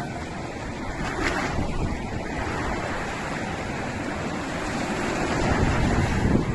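Ocean waves surging in strong wind, with the wind buffeting the microphone; the rush grows louder over the last couple of seconds.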